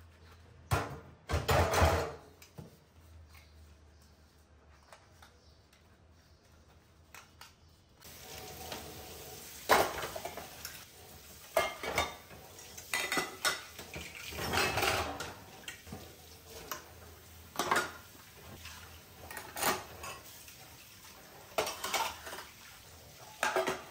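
Dishes and steel kitchenware clinking and clattering as they are washed and set one by one into a stainless-steel wire dish rack. There are a few knocks near the start, then a quieter spell, then frequent separate clinks from about a third of the way in.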